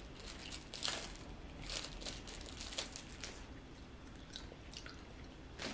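Faint crinkling and rustling of a paper tissue being handled, with quiet chewing and a few soft crackles spread through.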